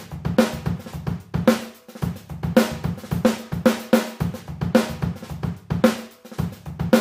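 Intro music with a steady drum-kit beat over a pulsing bass line.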